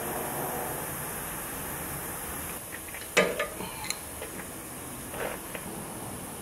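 Wrench and brass air-line fittings clinking and tapping as a truck's air-bag dump valve is unhooked, with the sharpest metal clink about halfway through, over a steady faint hiss.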